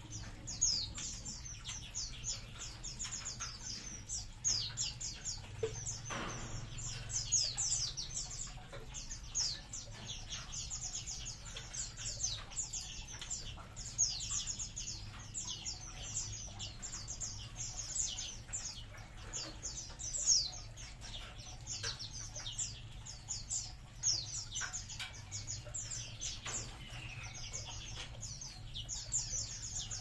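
A colony of munias (emprit) in an aviary chirping constantly: many short, high, down-slurred calls from many birds overlapping without a break.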